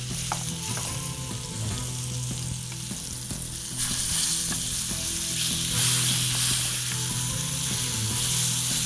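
Tandoori-marinated chicken pieces sizzling as they fry in a pan over a gas flame, with tongs moving the pieces. The sizzle grows louder about four seconds in.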